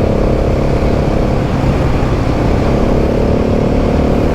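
Adventure motorcycle engine running at a steady throttle, with a dense low rumble of wind and riding noise on the microphone.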